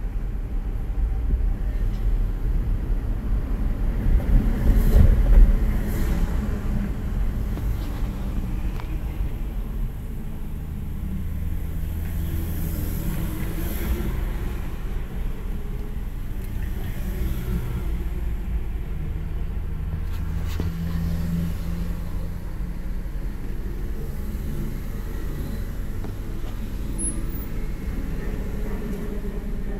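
A car being driven at road speed: a steady low rumble of engine and tyre noise, louder over the first few seconds, with a couple of brief knocks.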